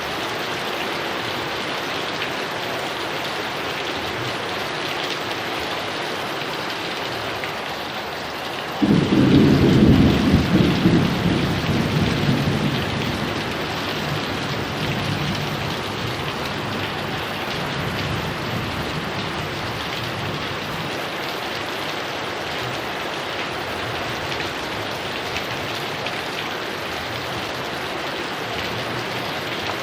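Heavy rain falling steadily, with a clap of thunder breaking in suddenly about nine seconds in, rumbling loudly for a few seconds and then rolling away over the next several seconds under the rain.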